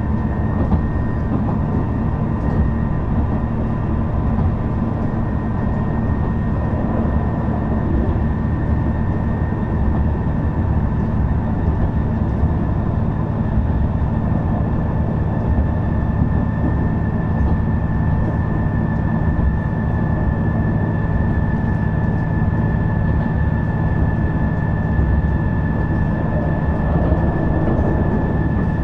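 Shigaraki Kohgen Railway SKR310-series diesel railcar SKR311 running at steady speed, heard from inside the car. A low engine drone and the noise of wheels on rail hold level throughout, with a thin steady high whine.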